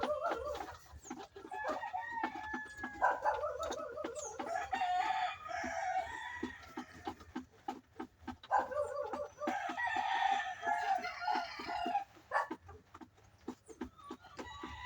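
Flock of young laying hens calling, with three long drawn-out calls one after another and many short clicks and clucks between them.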